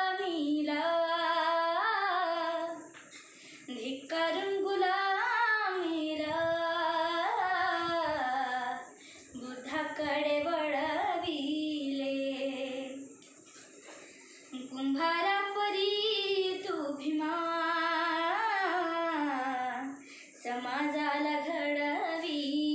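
A young girl singing a Marathi song unaccompanied, in long melodic phrases with short breath pauses between them.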